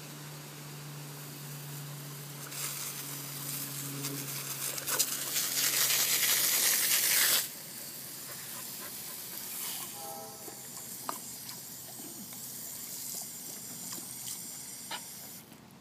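Garden hose spray nozzle hissing, building louder and then cutting off suddenly about halfway through. Afterwards it is quieter, with a few light clicks.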